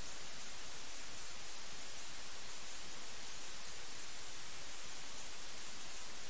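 Steady static hiss, even and unchanging, with no other sound heard over it.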